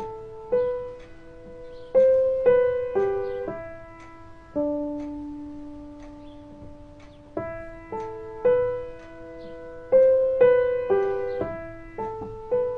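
Background music: a slow solo piano melody of single struck notes, with one long held low note midway before the phrase repeats.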